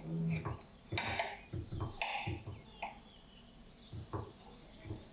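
Knife cutting through a frosted sheet cake, the blade pressing down and scraping against the baking tray in several short strokes about a second apart.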